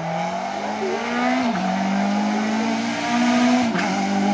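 Citroën C2 rally car accelerating hard at high revs, the engine note climbing and dropping sharply at an upshift about a second and a half in, then climbing again and dropping at a second shift near the end.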